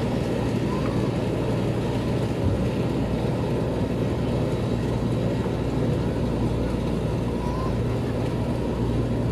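New Holland 8070 combine harvester's diesel engine and machinery running with a steady drone as the machine moves on its tracks.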